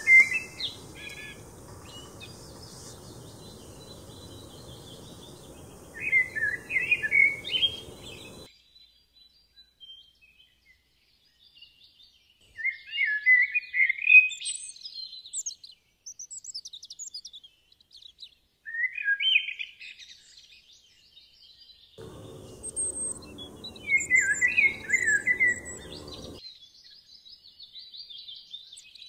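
A songbird singing short warbling, chirping phrases with pauses of a few seconds between them. A faint steady hiss lies under the song at the start, stops abruptly after about eight seconds, and comes back for a few seconds near the end.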